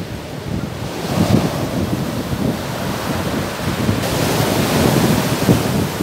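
Storm surf breaking and washing up a pebble beach, with wind buffeting the microphone. The hiss of the surf grows louder about four seconds in.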